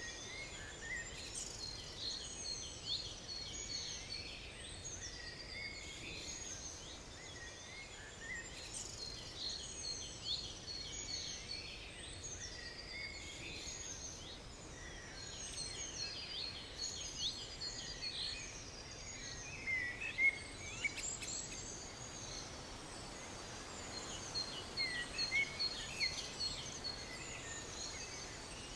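Several small birds singing and chirping at once in a steady chorus of short trills and calls, over a faint background hiss of open air.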